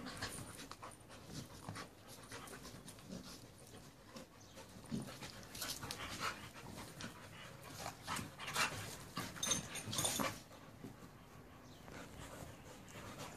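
A pit bull and a rottweiler play-wrestling: dog breathing and scuffles in irregular short noisy bursts, loudest in a cluster about eight to ten seconds in.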